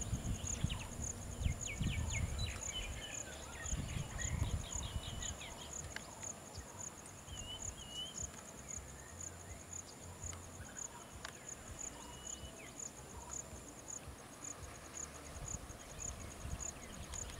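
Insect calling with a steady, high, pulsing drone, with birds chirping in the first few seconds and a low rumble underneath.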